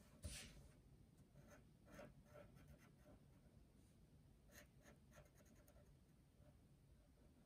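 Faint scratching strokes of a dual brush pen's felt tip on paper, short and irregular, the clearest about a third of a second in.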